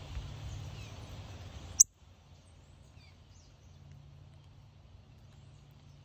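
Outdoor background: an even hiss over a low hum, ended by one sharp click about two seconds in. After the click a quieter steady hum continues, with a few faint bird chirps soon after.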